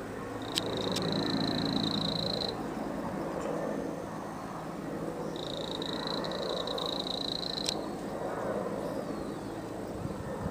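A high, steady animal call held for about two seconds, repeating roughly every five seconds, with a few faint clicks over low outdoor noise.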